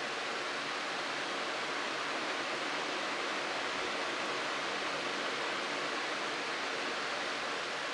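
Steady, even background hiss with nothing else heard.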